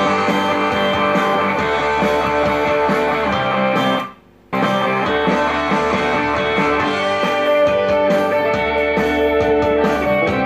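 Guitar-led music playing through a Kenwood KA-34 stereo integrated amplifier, fitted with a new STK4152 output IC and fresh capacitors, as a listening test after the repair. The music cuts out for about half a second around four seconds in, then carries on.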